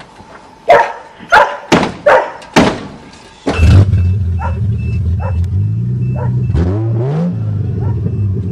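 A dog barks five times, then the 1982 Toyota Cressida's engine catches and runs steadily after stalling, revving up briefly near the end, with a pulsing warning chime over it.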